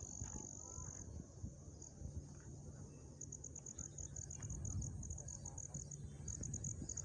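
An insect trilling high and steady, which stops about a second in; from about three seconds in it calls in quick, even pulses, about five a second. A low rumbling noise runs underneath.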